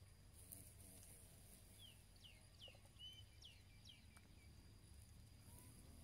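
Faint bird calls: a quick run of about seven short falling chirps, starting about two seconds in and lasting about two seconds. Underneath is a faint, steady, high insect buzz.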